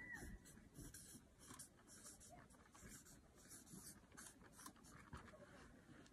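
Faint scratching of a marker writing on a paper flip-chart pad, in a string of short strokes.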